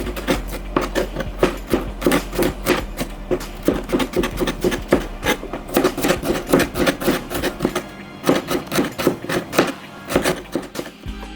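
Rapid, repeated hard knocks, about three to four a second, thinning out near the end, over background music.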